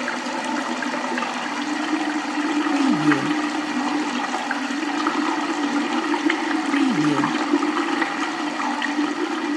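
Underground water ambience: steady rushing, flushing water, with a short low falling sound that comes back about every four seconds.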